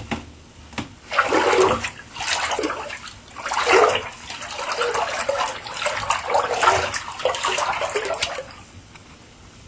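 Bath water sloshing and rushing in a series of surges, roughly one a second, for about seven seconds, beginning after a short click.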